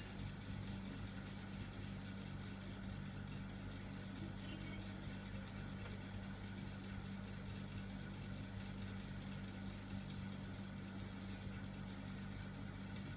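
Hunter Pacific Aurora 2 ceiling fan, running with two blades, giving a steady low electric motor hum.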